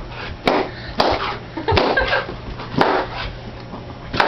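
Balloons bursting one after another as a dog bites into them: a series of sharp pops, about five, with rubbery scuffling and the dog's movement between them.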